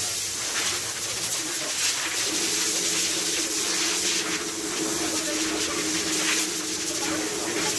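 A loud, steady hiss of rushing air that starts abruptly, with a steady hum joining about two seconds in.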